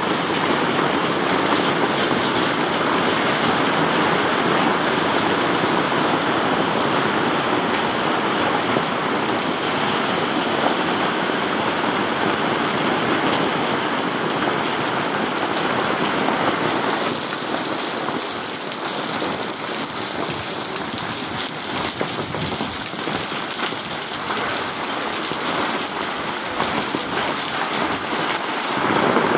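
Heavy thunderstorm rain pouring steadily: a dense hiss of falling drops with many sharp little hits on surfaces. A little past halfway the high part of the hiss shifts in character.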